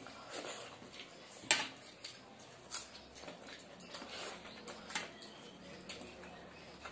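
Close eating sounds of two people eating rice and chicken curry by hand: chewing and lip smacks with fingers working rice on plates, as scattered irregular clicks and smacks, the sharpest about a second and a half in.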